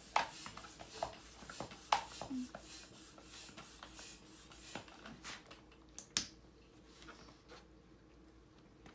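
Hand floor pump being worked to inflate a fat-bike inner tube, in short strokes about once a second. After a few seconds the strokes thin out into faint, scattered handling of the rubber tube.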